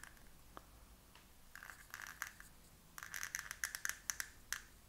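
Plastic hip joints of a NECA Teenage Mutant Ninja Turtles 3 Leonardo action figure clicking as the legs are worked apart. A few single clicks come first, then a quick run of sharp clicks near the end.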